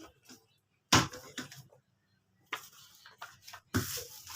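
A sharp thump about a second in, as a book or the package is set down, followed by scattered clicks and rustling of books and packaging being handled, with a steadier rustle starting near the end.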